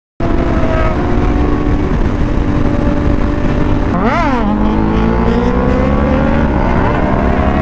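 Sportbike engine running at road speed. About four seconds in there is a quick rev blip, a sharp rise and fall in pitch, and then the engine pitch climbs steadily as the bike accelerates.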